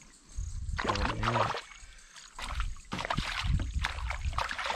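A small redfin (European perch) on the line thrashing and splashing at the water's surface beside a kayak as it is reeled in. The splashing comes in two bouts, one about a second in and a longer one from about three seconds.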